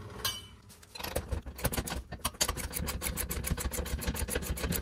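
Socket ratchet wrench clicking rapidly and evenly, starting about a second in, as it snugs down a steel pivot bolt on the trailer's dump frame.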